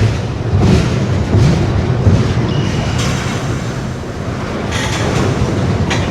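Train rolling past.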